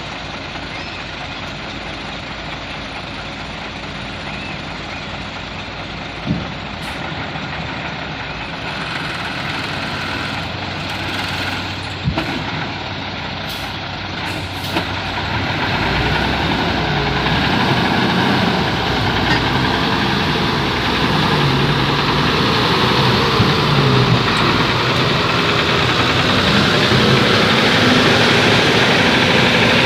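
Heavy diesel machinery running: the loaded trailer truck and the Hitachi EX200 excavator pushing it. The engine noise grows louder about halfway through, its revs rising and falling unevenly under load, with a few sharp knocks and clicks before that.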